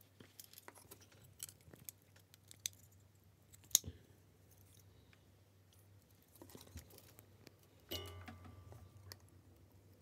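Faint, scattered clicks and small rattles of plastic pin headers and a printed circuit board being handled, as header pins are pushed through the board's holes; one sharper click about four seconds in and a brief clatter with a slight ring near the end, over a steady low hum.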